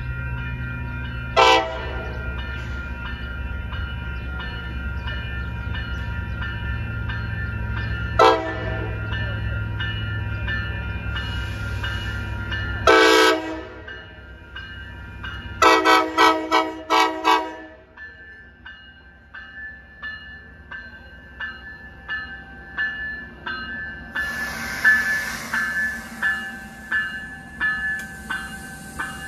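Coaster commuter train arriving: the locomotive rumbles steadily while its horn gives two single short toots, a slightly longer blast, then a quick string of about six toots. The rumble then drops away, leaving a bell dinging in a steady rhythm and a burst of air hiss near the end.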